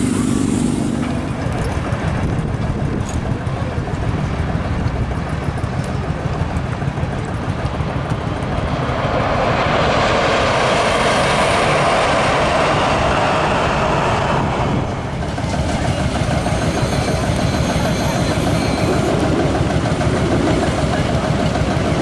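Engines of heavy machinery running steadily, with a louder, harsher stretch about nine seconds in that cuts off suddenly about fifteen seconds in.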